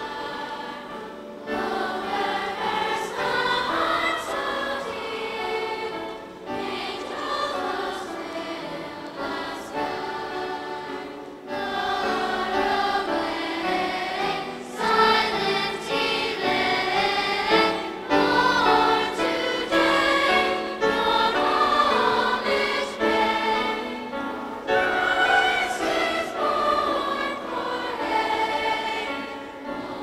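Children's choir singing in phrases separated by short breaks.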